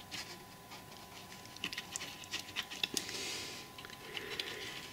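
Faint, scattered clicks and scratches of thin card model pieces being handled and slid into place by hand.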